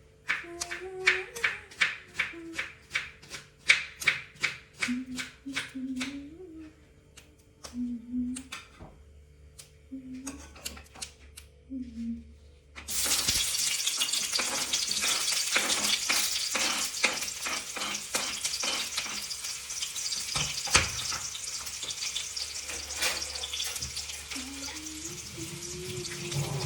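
A knife chopping onions on a cutting board in quick regular strokes, about three a second, then a few slower cuts. About halfway in, a loud steady sizzle of frying starts suddenly in the pan, with scrapes of stirring through it.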